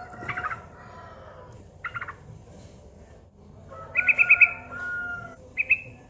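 Yellow-vented bulbul (trucukan) calling: four short, bubbly, rapidly trilled phrases, the loudest and longest about four seconds in.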